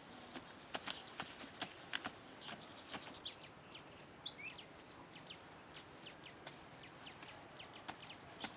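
Irregular knocks and taps of wooden digging sticks striking hard soil as holes are dug by hand, denser in the first few seconds and sparser later. A couple of short bird chirps come in about three and four seconds in.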